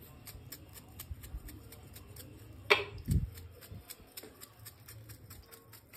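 A pizza seasoning jar set down on the kitchen counter: one sharp click about halfway through, then a low thump. Faint quick ticking runs underneath throughout.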